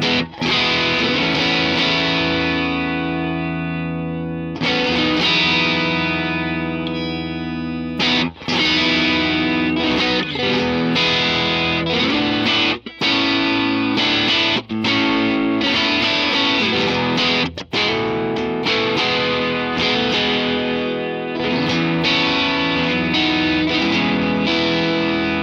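Electric guitar through an amp, strummed chords left to ring, each cut off sharply with a brief gap before the next, about five times.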